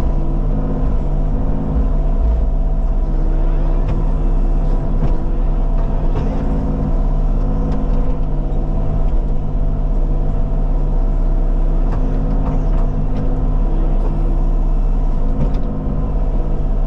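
Diesel engine of a Bobcat compact machine running steadily at working revs while it digs and pushes soft sand, with a few faint knocks.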